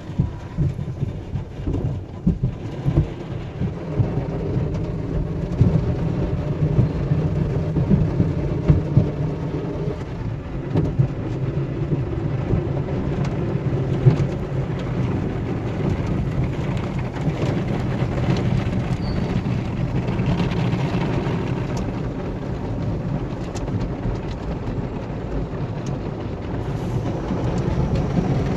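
Automatic car wash heard from inside the car's cabin: water spray and cloth wash strips slapping and scrubbing over the windshield and body, a steady muffled rumble with irregular thumps, most of them in the first ten seconds.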